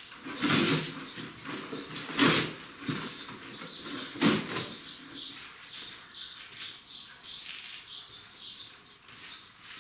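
Cardboard rustling and crackling as it is handled and pushed in among firewood as kindling, with three louder scraping rustles about half a second, two seconds and four seconds in.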